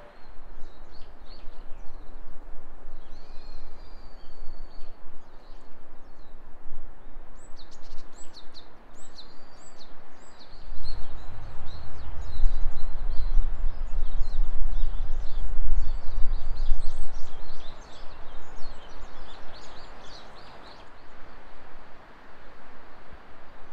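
Small birds chirping and trilling over a steady hiss, with wind buffeting the microphone as a loud low rumble for several seconds around the middle.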